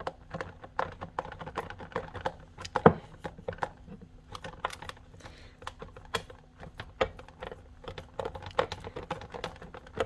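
Fingertips dimpling soft, oiled focaccia dough in a metal pizza tray: a quick, irregular run of soft taps and sticky pats, several a second, with one louder tap about three seconds in.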